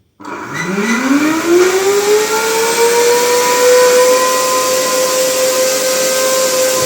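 Vacuum cleaner motor switched on, spinning up with a rising whine that settles into a steady high whine over a loud rush of air. The owner says it did not sound like this before.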